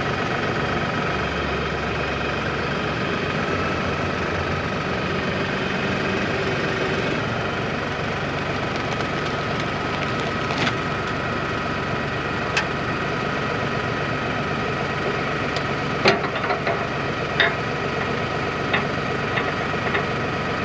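LS compact tractor's diesel engine idling steadily. In the second half a few sharp metallic clanks come from the three-point hitch linkage being adjusted.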